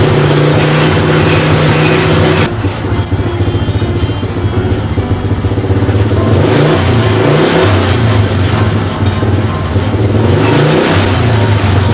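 125 cc motorcycle engine powering a homemade winch, running fast and then dropping to a lower speed about two and a half seconds in. From about halfway on it is revved up and down in repeated short rises.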